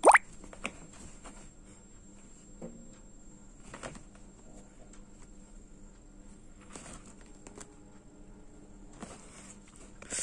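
A tabby kitten and a hand scuffling inside the torn lining of an upholstered cushion: faint scattered scrapes and rustles, with one sharp, loud sound that rises in pitch right at the start.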